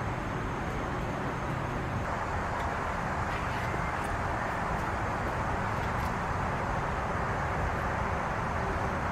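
Steady outdoor background noise, with a few faint clicks scattered through it.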